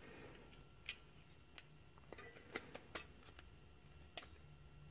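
Faint, irregular small plastic clicks and ticks as the circuit board is pried out of an opened Logitech M310 mouse's housing.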